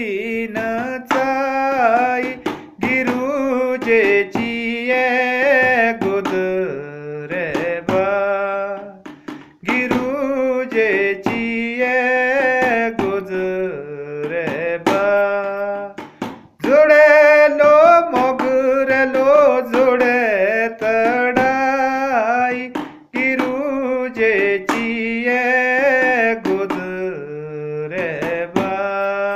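A man singing a solo melody in long, held, ornamented lines, over a regular percussion beat.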